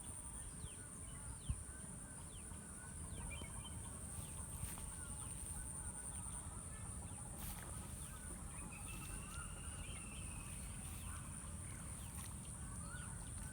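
Faint rural outdoor ambience: scattered bird calls over a steady high-pitched hiss and a low rumble, with one short knock about a second and a half in.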